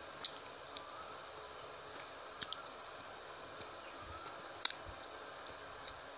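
Close-miked eating sounds: fingers mixing rice and fish curry on the plate with a soft squish while chewing, broken by a few sharp clicks, the loudest about two-thirds of the way in.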